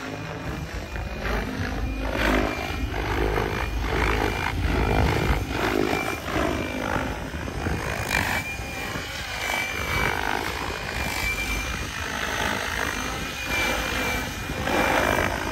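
Electric RC helicopter flying aerobatics: the rotor blades rush and swell as it passes, over a steady high-pitched motor and gear whine.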